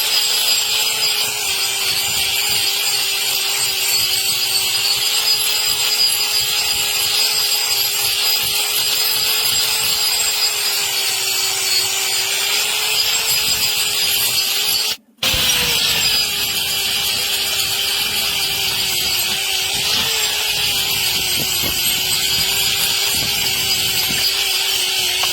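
An electric power tool running steadily and cutting into overgrown cow hoof horn: an even motor tone under a loud grinding hiss, the pitch sagging slightly as it bites. It stops for a moment about fifteen seconds in, then carries on.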